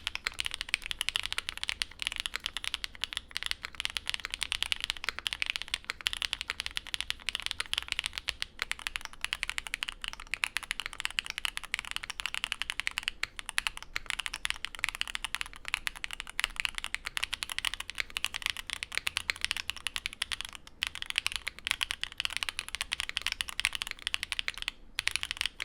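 Fast, continuous typing on a custom mechanical keyboard: a dense run of crisp keystroke clacks with a few brief pauses, a sound likened to chocolate breaking.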